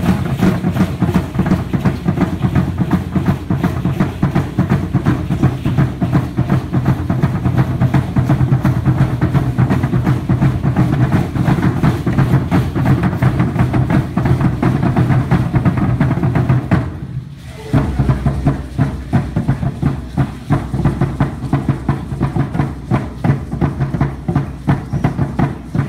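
Aztec huehuetl, a tall upright wooden drum, beating a fast, steady rhythm for the dancers. The drumming breaks off for about a second around seventeen seconds in, then starts again.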